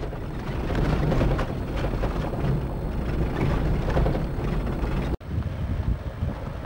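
Off-road 4x4 driving over a rough dirt track, heard from inside the cab: a steady engine and road noise with loose rattling and wind buffeting from the open window. The sound breaks off for an instant a little over five seconds in, then carries on the same.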